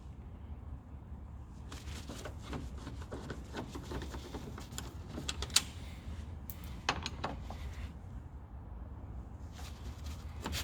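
Screwdriver working out the screws that hold the car's door lock mechanism inside the door: scattered small metallic clicks and scrapes over a low steady hum, with one sharp click about five and a half seconds in.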